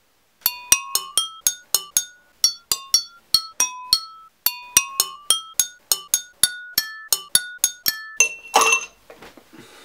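Drinking glasses of water struck with a thin wooden stick, about two dozen quick clinks that each ring at a clear pitch, the pitch changing from note to note to play a tune. A little after 8 s a louder, noisier clatter ends the tapping.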